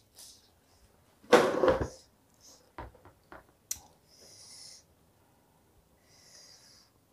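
A person eating very hot chili with her hands: one loud, harsh burst of breath, then a few short mouth clicks, then two hissing breaths drawn through the teeth, the sound of a mouth burning from chili.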